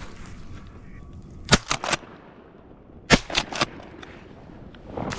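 Two shotgun shots about a second and a half apart, each a sharp loud report followed by quick weaker echoes, fired at a passing duck.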